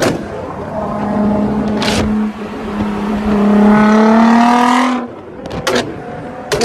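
Car engine with an anti-lag system revving: a sharp exhaust bang at the start and another about two seconds in, then the engine held high and climbing slightly for about three seconds before cutting off suddenly. Single sharp backfire bangs follow near the end, about a second apart.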